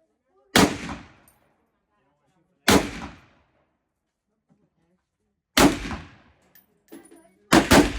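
A .308 AR-style semi-automatic rifle firing five shots: three spaced two to three seconds apart, then two in quick succession near the end, each a sharp report with a short ring-off. A fainter metallic knock comes just before the last pair.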